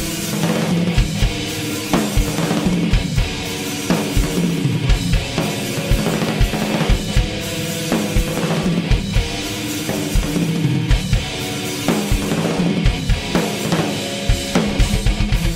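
Live heavy metal band playing: drum kit with bass drum and snare hits over sustained distorted electric guitar chords. Near the end the drummer breaks into a fast run of bass drum strokes.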